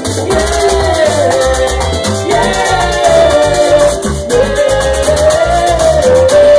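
Live Latin band music with a metal güira scraped in a steady, fast rhythm over a pulsing bass and a held melody line.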